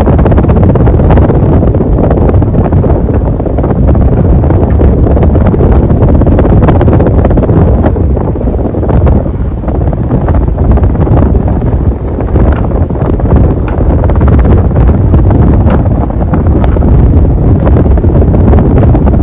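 Heavy wind buffeting on the microphone in the downdraft of a 52-inch Gulf Coast Futura ceiling fan running at full speed: a loud, steady low rumble.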